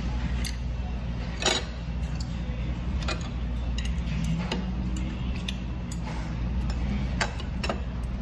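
Metal chopsticks and dishes clicking and clinking now and then, the sharpest click about a second and a half in, over a steady low hum.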